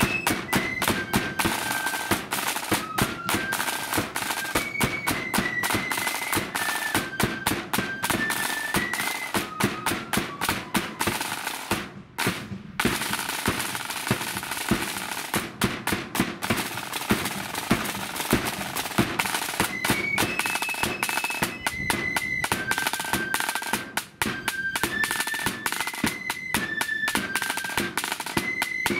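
Marching flute band playing a tune: the flutes carry a high stepping melody over rapid snare drum rolls and a bass drum beat. The whole band breaks off for a moment about twelve seconds in, then plays on.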